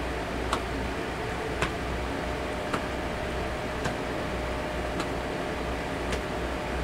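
Light knocks of loose fists on the body, one about every second, as the arms swing with each turn and strike the hollow between shoulder and chest. A steady hum, like a fan or air conditioner, runs underneath.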